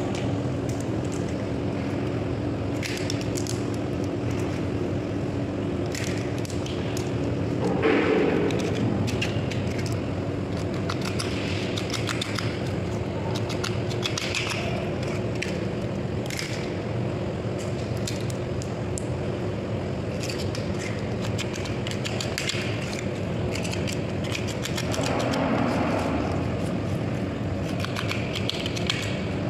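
Raw crab shells cracking and snapping as they are pulled apart by hand, in scattered sharp clicks, over a steady hum.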